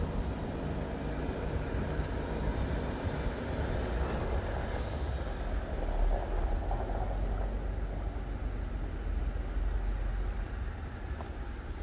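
A bulk freight train hauled by two coupled Korail 8500-class electric locomotives approaches from a distance, a steady low rumble that swells a few seconds in.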